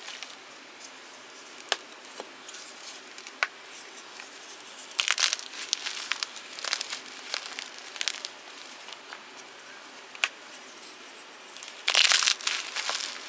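Fresh blocks of gym chalk being crushed, a scatter of dry crackles and sharp snaps. There are two louder crunching bursts, about five seconds in and near the end.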